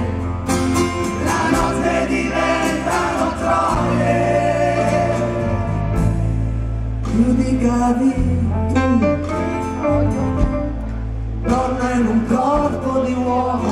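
Live rock band playing: a male lead singer singing over strummed acoustic guitar, with a steady bass line underneath.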